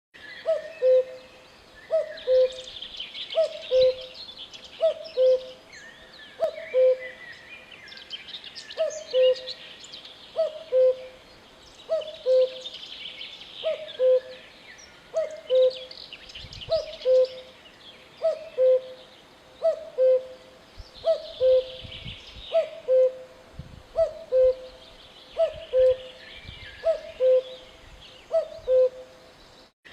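Common cuckoo calling its two-note falling 'cu-ckoo' over and over, about one call every one and a half seconds. Smaller birds chirp and twitter in higher-pitched patches behind it.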